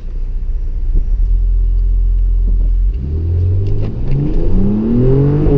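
Mercedes-AMG GLE 43's twin-turbo V6 holding a steady low rumble for about three seconds. It then accelerates, its pitch climbing steadily, and an upshift drops the pitch right at the end.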